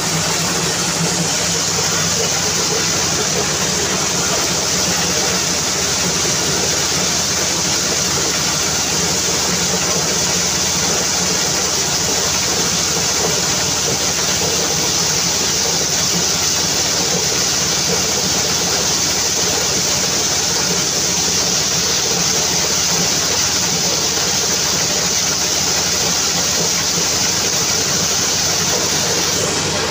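Diesel-driven mobile corn sheller running steadily under load, the engine's hum under a constant rattling hiss of husked corn cobs being shelled in the threshing drum.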